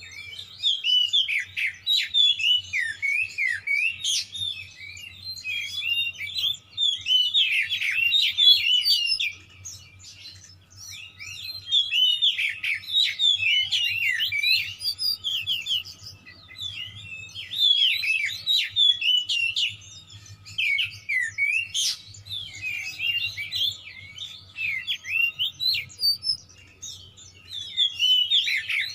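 Oriental magpie-robin (kacer) singing an excited, combative song: fast, varied runs of sharp whistles and chattering notes, phrase after phrase with brief pauses, over a faint low hum.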